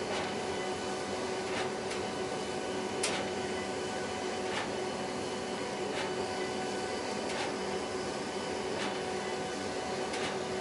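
HP Designjet 5000ps 42-inch large-format inkjet printer printing: a steady whirring hum with a short click about every one and a half seconds.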